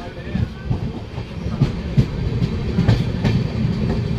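Passenger train coach wheels clattering over the rails as the train pulls into a station: a steady low rumble with irregular clickety-clack knocks several times a second.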